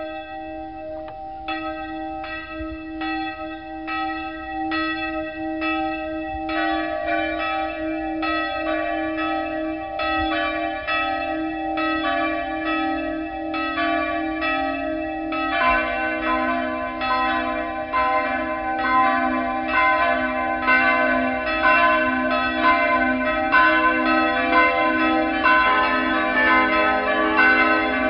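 Church bells pealing, struck over and over about twice a second with their tones ringing on. More bells join about six seconds in and again about fifteen seconds in, and the peal grows louder.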